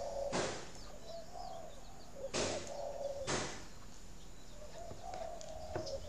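Spotted dove cooing softly in three low, wavering phrases: the male's urging coo ('thúc') that pushes the breeding female to lay. A few sharp knocks and faint high chirps of small birds come through between the coos.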